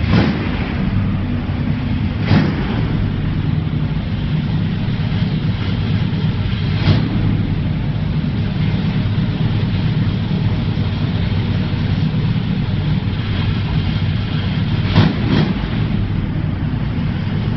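Pontiac Firebird Trans Am exhaust running steadily at idle through newly installed Cherry Bomb mufflers, a deep low rumble, with a few brief sharp spikes scattered through it.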